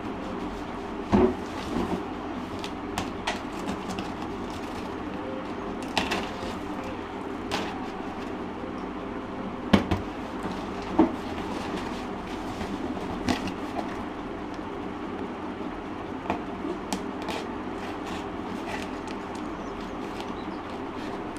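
Irregular crackles, rips and knocks of a taped cardboard and plastic parcel being pulled and torn open by hand, over a steady background hum.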